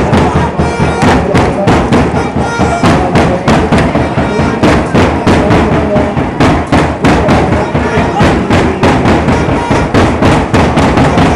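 Supporters' drums beating a steady rhythm, about three beats a second, with a crowd of football fans chanting along.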